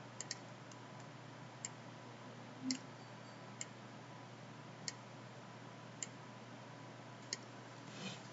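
Computer mouse clicking: about eight single sharp clicks, a second or more apart, two of them close together near the start, over a faint steady hum.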